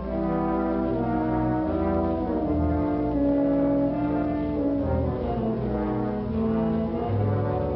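Orchestral film score led by brass, playing slow held chords that shift from note to note over a moving bass line.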